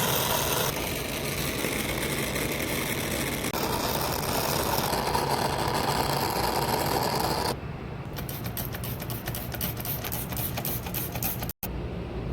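Window air conditioner running with a steady mechanical hum while being gas-charged. The sound shifts abruptly a few times, and in the last third it is quieter, with a fast light rattle of clicks.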